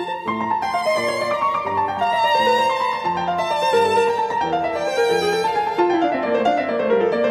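Background music: a melody on a violin with a bass line beneath it and runs of notes sliding downward.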